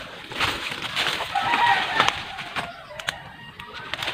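A rooster crows briefly about one and a half seconds in, over rustling and crunching of dry leaves and twigs underfoot.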